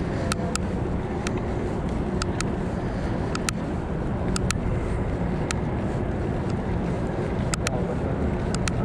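Riding noise picked up by a chest-mounted action camera on a moving bicycle: a steady low rumble of wind on the microphone and tyres on pavement, with scattered sharp clicks and ticks.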